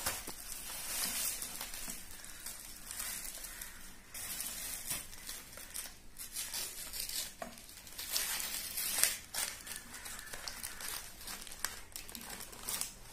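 Paper bag being crinkled and torn open by hand: irregular rustling and crackling, with a sharper crinkle about nine seconds in.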